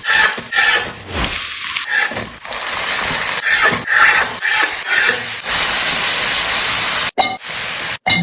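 Chicken cooking in a pan with a hissing sizzle: uneven pulses for the first few seconds, then a steady hiss, cut off sharply twice near the end.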